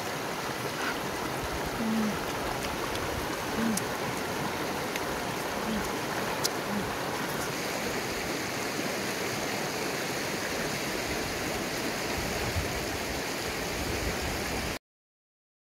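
Shallow river rushing over rocks and stones, a steady wash of water. It cuts off abruptly near the end.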